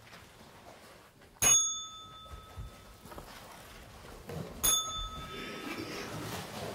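Typewriter bell dinging twice, about three seconds apart, each ring fading out over a second or so.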